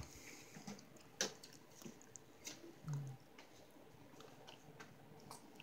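Quiet mealtime sounds: a few faint, sharp clicks of a knife and fork on a dinner plate as meat is cut, about a second, two and a half seconds and five seconds in.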